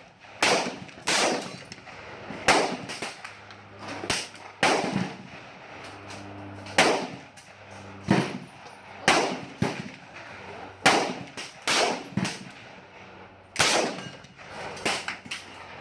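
Rifle gunfire: about twenty shots at uneven intervals, some much louder than others, each with a short echoing tail.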